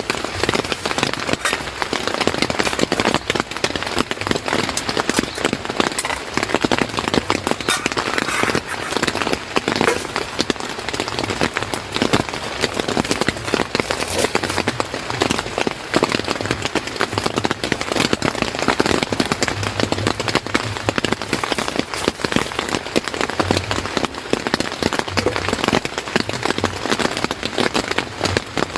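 Steady rain falling, a dense stream of sharp drop hits on a nearby surface.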